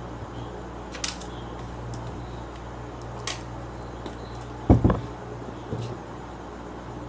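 A few sharp clicks and two low knocks from handling the plastic socket plate and hand tools while making its bolt holes, the knocks loudest just before the middle, over a steady low hum.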